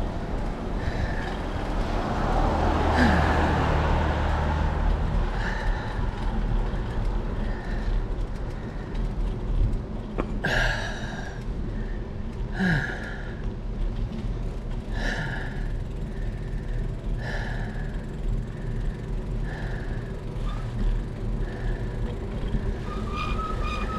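Bicycle ride on a paved street: steady road and wind rumble on a handlebar action camera, with a short squeak repeating about every two seconds. A louder low hum passes between about two and five seconds in.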